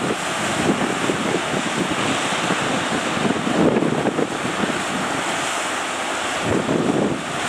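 Surf breaking with strong wind buffeting the microphone in irregular gusts.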